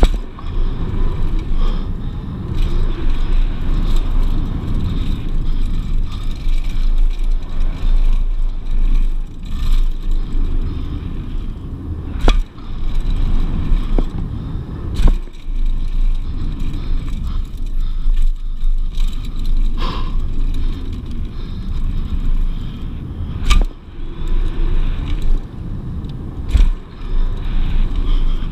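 Mountain bike rolling fast down a packed-dirt trail, heard from a camera on the bike: a steady rumble and rattle from the tyres and frame, with sharp clacks as it hits bumps, the loudest three spread through the run.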